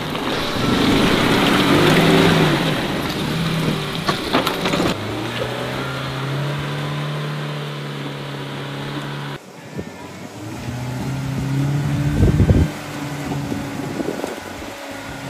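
Mahindra Thar's engine revving, rising and falling in pitch, as the SUV ploughs through deep mud in four-wheel drive, with a rushing noise over it for the first few seconds. The sound breaks off abruptly about nine seconds in, and the engine picks up again, revving unevenly.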